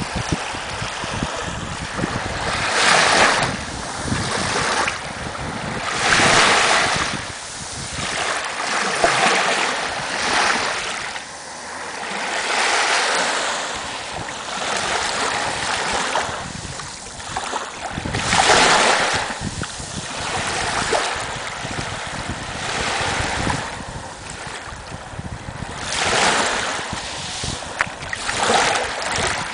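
Small waves breaking at the water's edge and washing around a coconut in the shallows, a surge of surf every few seconds.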